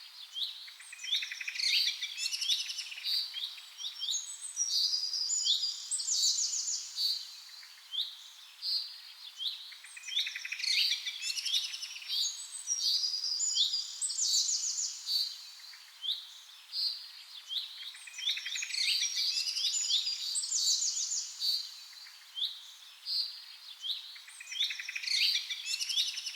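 Birds chirping and singing, many short calls and trills overlapping, in spells that swell and ease off every several seconds.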